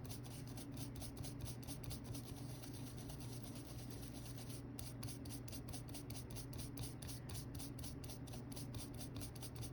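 Soft toothbrush bristles scrubbing a phone's corroded connector with isopropyl alcohol: a faint, quick, even scratching of several strokes a second. It is the rust and liquid-damage residue being brushed off the pins. A steady low hum lies underneath.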